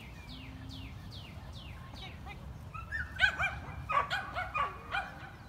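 A dog barking in a quick series of sharp, high-pitched yips, starting about three seconds in as it is released from its start-line sit and runs the agility jumps.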